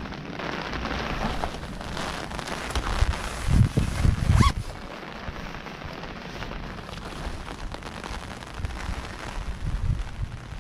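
Steady rain falling, with a few louder low thumps about three and a half to four and a half seconds in and a brief rising squeak just after them.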